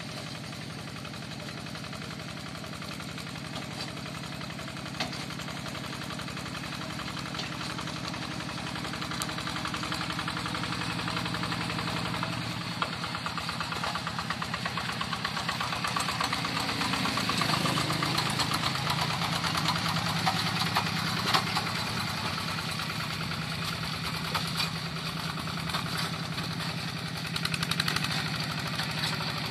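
Yanmar Bromo Pro hand tractor's single-cylinder diesel engine running with a steady, fast chugging beat. Its speed dips and then rises about halfway through.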